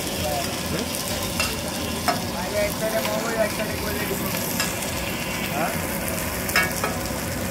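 Food frying in hot oil in a pan, sizzling steadily while it is stirred, with a few sharp clinks of a utensil on the metal.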